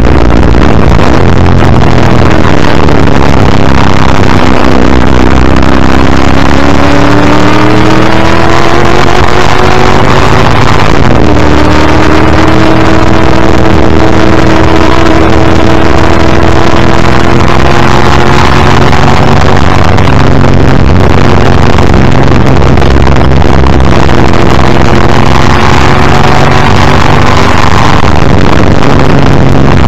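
1984 Ford Falcon XD Group C touring car's V8 engine at racing speed, heard from the front bumper. Its note falls off early on through a bend, then climbs under full throttle, with upshifts about 11 and 20 seconds in, the pitch dropping at each shift and rising again.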